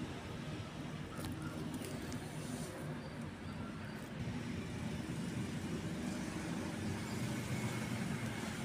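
Steady low rumble of road traffic, with a few faint ticks in the first half.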